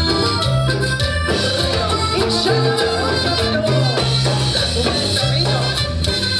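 Live Latin tropical dance band playing an instrumental passage: bass and keyboard over timbales, congas and a scraped metal percussion instrument, keeping a steady dance beat.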